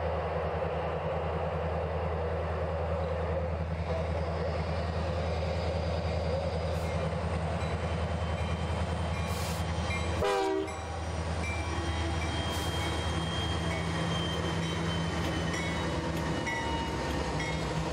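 Four CN diesel freight locomotives (SD75I, Dash 9-44CW, SD50F, SD75I) passing close by, their engines rumbling steadily under the rolling noise of wheels on rail. There is a brief break in the sound about ten seconds in.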